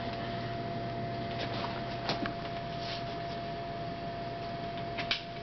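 A steady hum with a few faint clicks and rustles: one at the start, one about two seconds in, and a couple near the end.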